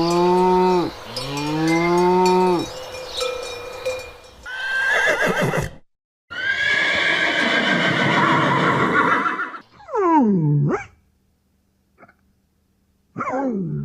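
A run of farm animal calls, one after another: two arching calls in the first few seconds, a long drawn-out call in the middle, and two short calls that fall steeply in pitch near the end.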